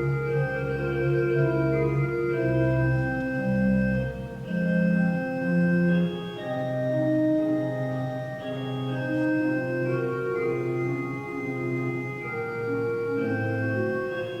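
Church organ playing slow, sustained chords, with deep pedal bass notes that drop out about four seconds in.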